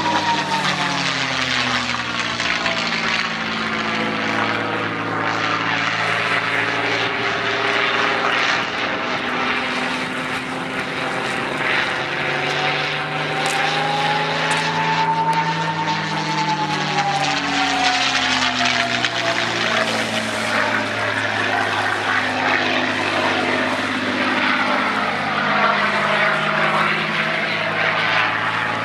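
North American P-51D Mustang's Packard Merlin V12 engine and propeller in aerobatic flight, the engine note bending up and down in pitch as the aircraft manoeuvres and changes distance. About halfway through, a thin whistling tone rises and then slowly falls over the engine sound.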